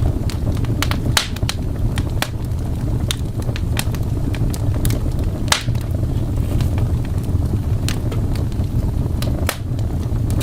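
Fireplace fire crackling: irregular sharp pops of varying strength over a steady low rumble.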